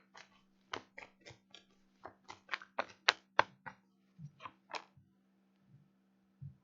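Tarot cards being handled: a quick, irregular run of sharp clicks and snaps, loudest about three seconds in, then a couple of soft low thumps near the end, over a faint steady low hum.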